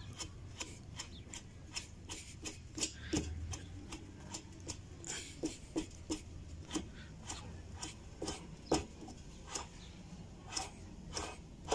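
Loosened seal nut on a Maytag washing machine transmission being spun by hand off its threaded shaft. It gives a series of irregular metal clicks, about two a second, with some rubbing.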